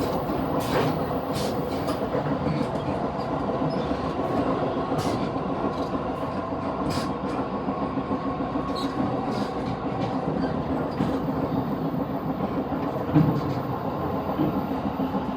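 Steady running noise of an E233-series commuter train heard inside the passenger car: a wheel-and-rail rumble with faint steady hums, scattered clicks from the wheels over rail joints, and one louder knock about thirteen seconds in.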